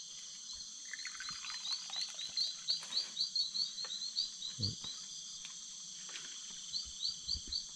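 Night-time forest chorus: a steady high insect drone with a rapid run of short chirping calls, about three or four a second, that pause for a few seconds midway and then resume. A single soft knock sounds about four and a half seconds in.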